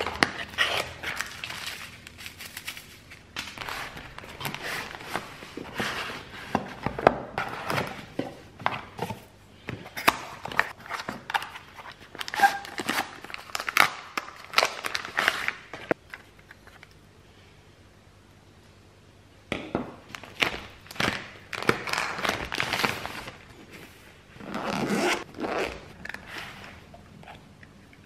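Cardboard packaging and paper wrapping being handled: a box sliding and scraping, paper rustling and crinkling in quick, irregular bursts. The noises stop for a few seconds about midway, and there is a longer rasp about three-quarters of the way through.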